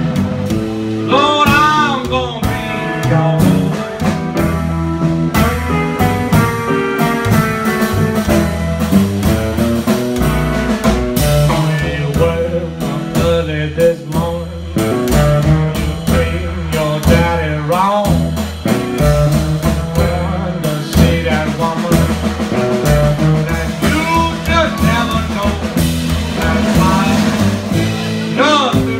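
Live acoustic blues: a small plucked stringed instrument played over an upright bass, with a man singing at times.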